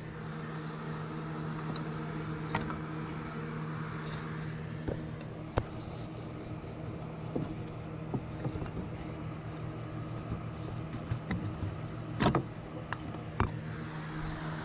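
A steady mechanical hum throughout, with scattered light clicks and knocks, about half a dozen, from hand work on the loosened AC drive belt and tensioner of a mini excavator's engine as the belt is worked off the pulleys.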